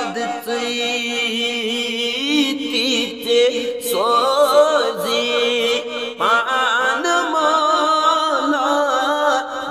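A man singing a Kashmiri naat, a devotional song in praise of the Prophet Muhammad, drawing the words out in long ornamented notes that waver up and down in pitch. A new phrase starts about four seconds in and again about six seconds in.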